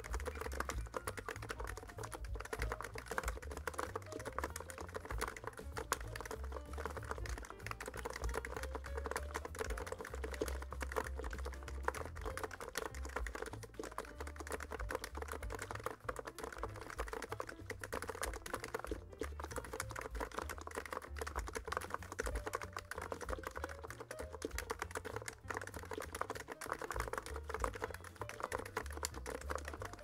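Continuous fast typing on a NiZ X99 Pro keyboard with silenced electrostatic capacitive (EC) switches and PBT keycaps: a dense, steady stream of keystrokes.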